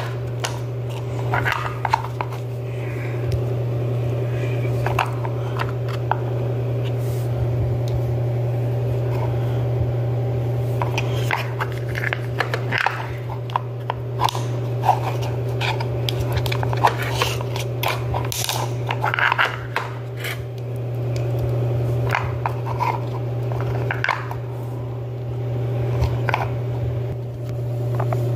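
Plastic pieces of a toy Play-Doh noodle maker clicking and knocking as the dough is pressed through it and handled, in scattered taps throughout, over a steady low hum.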